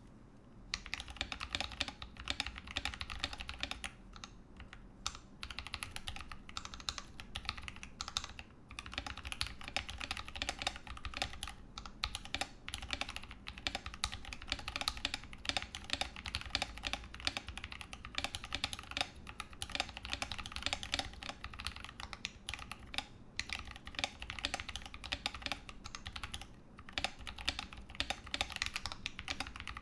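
Steady fast typing on a Ramaworks M60-A mechanical keyboard with original Holy Panda tactile switches, GMK Pristine keycaps and an integrated aluminum plate, dampened with an internal weight and Sorbothane. The keystrokes begin about a second in and run in dense streams with a few brief pauses.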